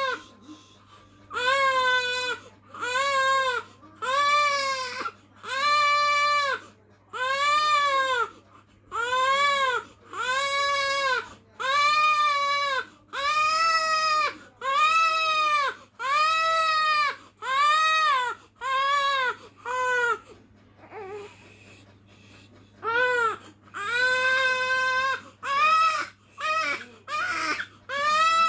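Infant crying in a steady series of wails, about one a second, each rising and then falling in pitch. The crying stops for a few seconds about three-quarters of the way through, then comes back as shorter, quicker cries.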